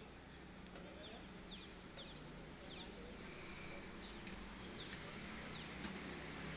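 Birds calling: a scattered series of short, high whistles that fall in pitch, over a faint steady low hum. Two sharp clicks come just before the end.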